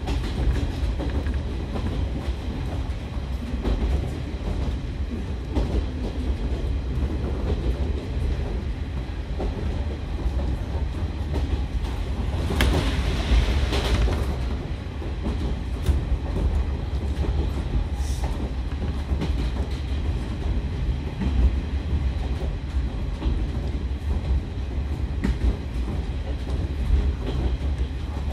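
JR Kyushu KiHa 147 diesel railcar under way, heard from inside the carriage: a steady deep rumble of engine and running gear, with wheels clicking over rail joints. A brief louder rush comes about halfway through.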